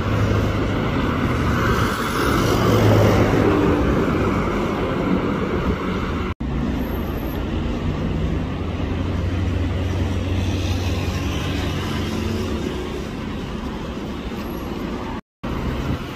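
City road traffic: car engines running and tyres on the road in a slow queue of cars, with a low steady engine hum. The sound drops out for an instant twice.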